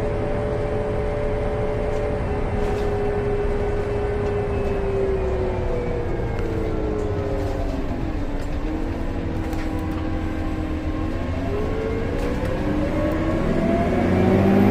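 A 2014 Gillig Low Floor BRT Plus CNG transit bus slowing, its engine and drivetrain whine falling in pitch over about eight seconds. It holds low for a few seconds, then pulls away again, the whine rising and growing louder near the end.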